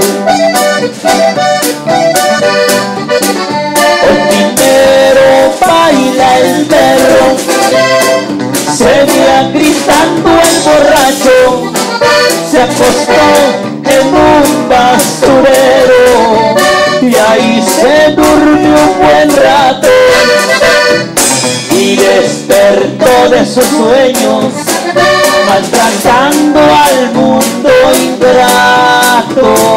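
Regional Mexican band music led by an accordion, with drums keeping a steady beat and bass and keyboard underneath.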